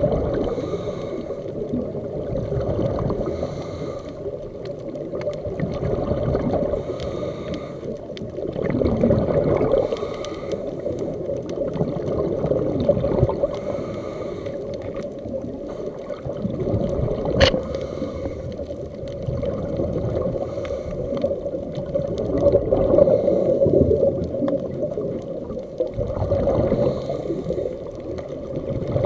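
Muffled underwater rumble picked up through a camera's waterproof housing, with the diver's scuba exhaust bubbles surging every few seconds as they breathe out. A single sharp click sounds a little past halfway.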